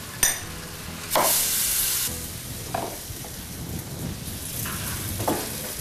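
Chicken drumsticks frying in butter and spices in a wok, sizzling while a spoon stirs and scrapes the pan. A sharp clink comes about a quarter second in, and the sizzling flares louder for about a second shortly after.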